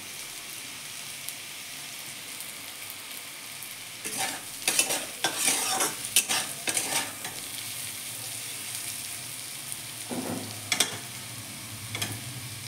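A spatula stirring and scraping vegetable bhujia (carrot, beetroot, onion) around a kadhai in short bursts, about four seconds in and again near the end. A faint steady sizzle comes from the still-hot pan with the gas just switched off.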